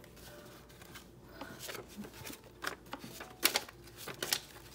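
Paper banknotes being handled and counted by hand: soft rustling of bills with several crisp flicks and snaps, most of them in the second half.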